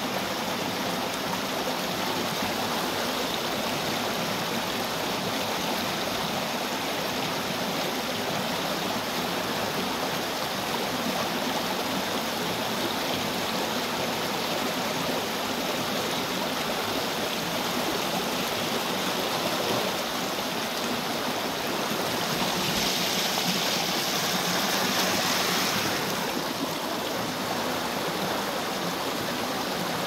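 Shallow river flowing steadily over rock shelves and stones, an even rushing and babbling of water. For about three seconds past the middle the water sound grows louder and hissier, then settles back.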